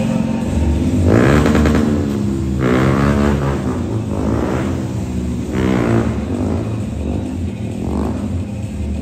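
Motorcycle engines revving in about four surges over a steady low engine rumble.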